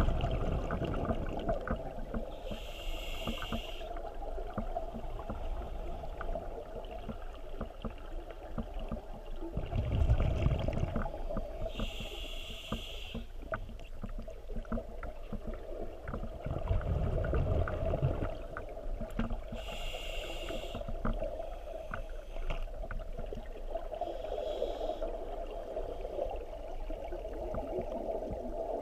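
Scuba diver breathing through a regulator underwater: a hissing inhale every several seconds, and between them low rumbles of exhaled bubbles. A steady hum and small bubble clicks run underneath.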